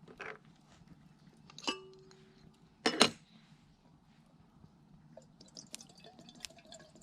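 Metal camp cookware being handled: a ringing clink about two seconds in and a louder clatter about a second later. Near the end, a faint trickle of water starts being poured.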